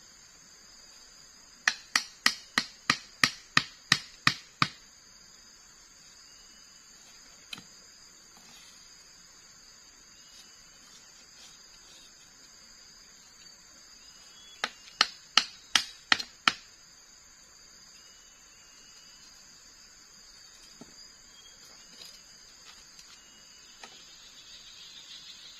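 Wooden fence stakes being struck to drive them into the ground: two runs of sharp, evenly spaced knocks, about three a second, first about ten strikes and then, after a long pause, about six more. A steady high-pitched insect drone runs underneath.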